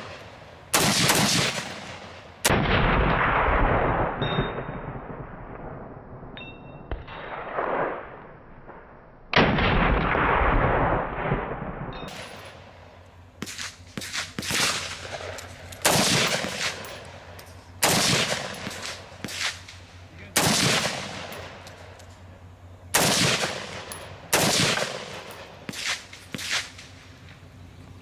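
Semi-automatic gunfire: a string of single shots and quick double taps, each ringing with echo. A few shots are spaced several seconds apart at first, then roughly one or two a second come for the second half.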